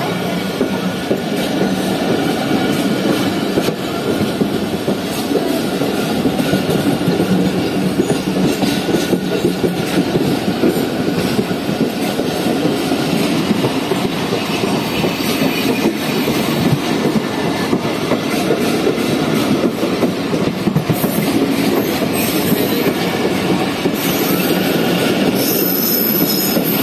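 Passenger train coaches rolling past on the adjacent track at very close range: a loud, steady rumble of wheels on rails with clickety-clack over the joints, and high wheel squeals toward the end.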